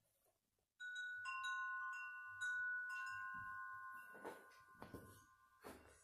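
Tubular wind chime set ringing by hand: its metal tubes strike one after another over a couple of seconds, giving several clear, overlapping bell-like tones that sustain and slowly fade.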